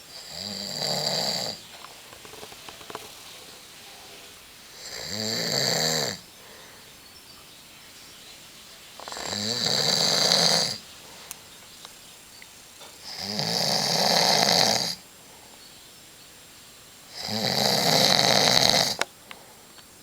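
A man snoring in his sleep: five long snores, roughly one every four seconds, each lasting one to two seconds, with quiet breathing gaps between them.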